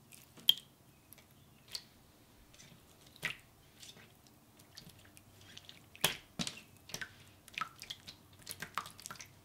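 Clear water slime being stretched, squeezed and pressed by hand, giving scattered wet clicks, pops and squelches that come more often in the second half.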